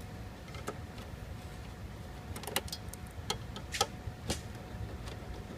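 Irregular small clicks and taps of a Phillips screwdriver and loose screws against the plastic and metal back of an all-in-one computer, about half a dozen sharp ticks spread unevenly over a low steady hum.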